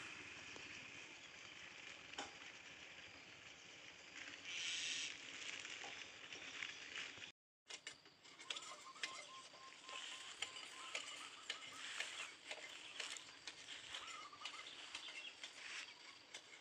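Faint outdoor ambience: birds chirping over a steady hiss. The sound cuts out for a moment about halfway through.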